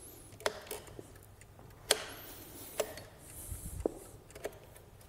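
Wooden chess pieces set down on a wooden board and chess clock buttons pressed in a fast five-minute blitz game: about five sharp, separate clicks and knocks a second or so apart.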